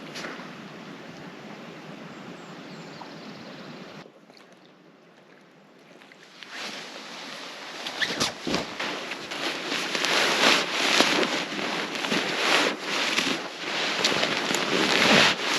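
Lake water washing on a beach, with wind on the microphone. A sudden break about four seconds in leaves a quieter hush, and from about six seconds on the noise grows louder and uneven.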